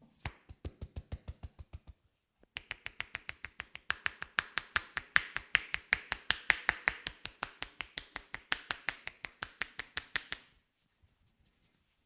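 Massage tapotement: hands striking the client in a fast, even rhythm of about seven sharp slaps a second. A short run is followed, after a brief pause, by a longer run that gets louder partway through and stops shortly before the end.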